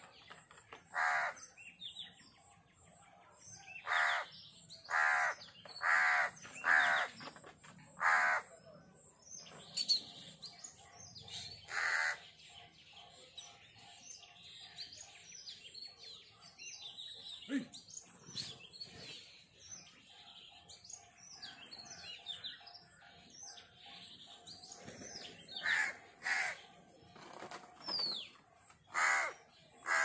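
Crows cawing, a run of short harsh calls in the first several seconds and again near the end, with fainter chirping of small birds in the quieter stretch between.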